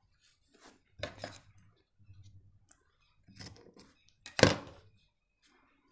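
White shirt fabric being handled on a sewing machine table while the machine is stopped, between stitching runs. A few short rustles and knocks, the loudest about four and a half seconds in.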